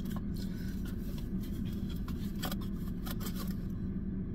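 Light rustling and scattered small clicks of food packaging and hands moving about inside a parked car, over a steady low hum.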